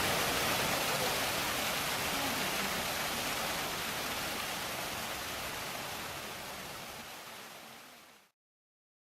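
Steady rush of running water, fading out gradually and cutting off about eight seconds in.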